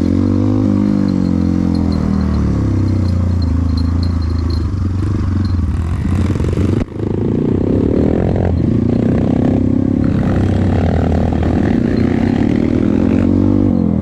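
Trail motorcycle engine running hard, its pitch rising and falling as the throttle is worked, with some clatter. The sound drops out sharply for a moment about halfway through.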